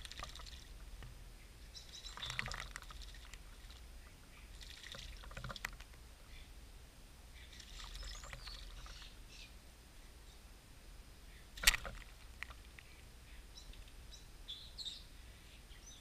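A bird splashing in a bird bath, in four or five short bursts of splashing water. There is a single sharp tap, the loudest sound, about three-quarters of the way through, and a few faint bird chirps near the end.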